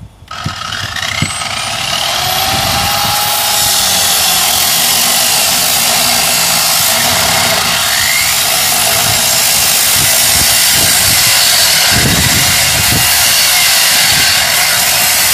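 Corded electric angle grinder spinning up with a rising whine about a quarter second in, then cutting steadily through the body pillar of a Land Rover Discovery to take the roof off.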